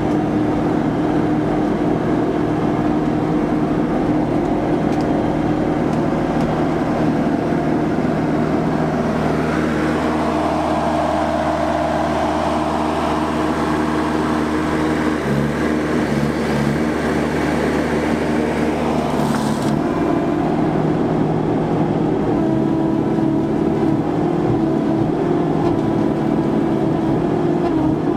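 Vimek 404 T3 harvester's engine and hydraulics running steadily as the crane and harvester head are worked, heard mostly from inside the cab. For about ten seconds in the middle the sound changes, heard from outside the machine, then switches back abruptly.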